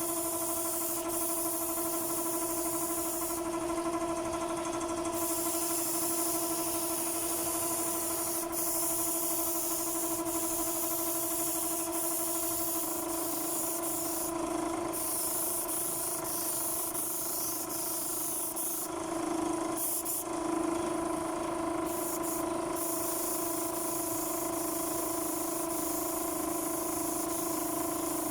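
Spray gun hissing as wood finish is sprayed, over a steady motor hum. The hiss stops briefly a few times, around 4 s, 15 s and 20 s in, as the trigger is released.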